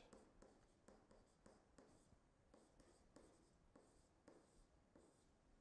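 Faint, irregular scratches and taps of a stylus writing on a tablet screen.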